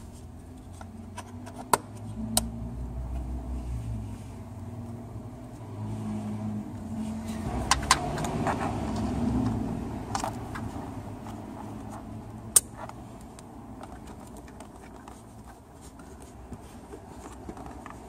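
Hands refitting a car's central-locking vacuum pump unit and its plastic hoses: a handful of sharp plastic clicks and knocks with handling and rustling noise, over a low hum.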